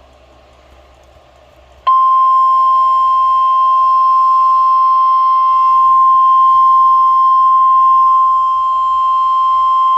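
NOAA Weather Radio warning alarm tone, a single steady 1050 Hz beep. It starts about two seconds in after faint background hum and holds at a constant pitch and level. It is the tone that announces a new warning broadcast.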